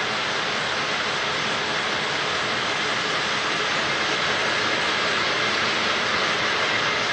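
Plastic bag-making machinery running: a steady, even whirring hiss with no clear rhythm or separate clicks.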